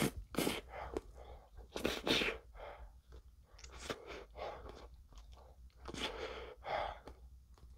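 Close-up mouth sounds of a man eating a spoonful of ice cream, broken by several short sharp sniffs and breaths about a second or two apart: his nose is running from very spicy noodles.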